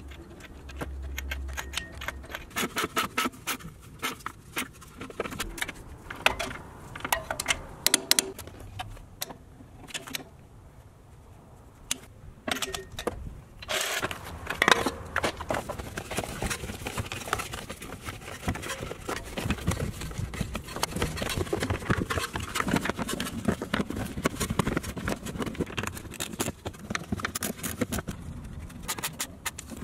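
Metal clicks, clinks and rattles of tools and car parts being handled, with scraping, as a floor jack is lowered from the suspension and a plastic underbody cover is fitted and fastened. The loudest knocks come about halfway through.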